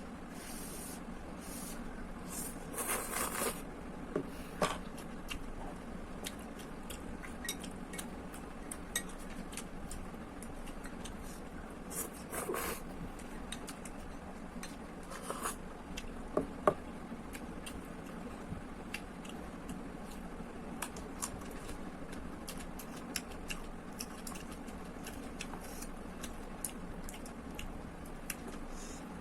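Eating with cutlery from a bowl of instant noodles: scattered light clicks and scrapes of utensils against the bowl, with a few short wet noisy bursts, over a steady low background hum.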